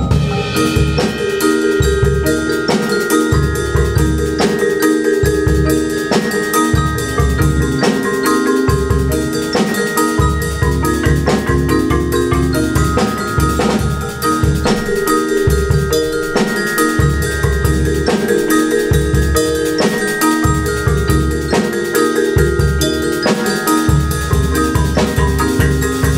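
Percussion ensemble playing: several marimbas and other mallet keyboards in a repeating rhythmic pattern, over deep low notes that pulse on and off, with a drum kit and cymbals.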